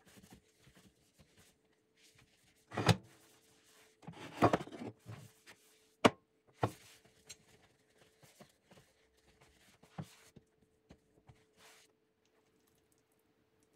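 Kitchen handling sounds: objects knocked and set down on a wooden counter. There is a sharp knock about three seconds in, a short clatter of knocks around four and a half seconds and a sharp click just after six seconds, then a few light taps, over a faint steady hum.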